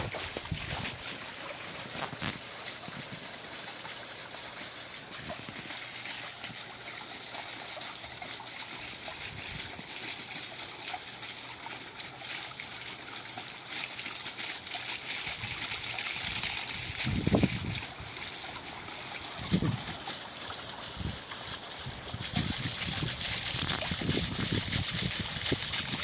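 Garden pond fountain jet splashing back onto the water, a steady splashing and trickling that grows louder near the end. A couple of low bumps come about two-thirds of the way through.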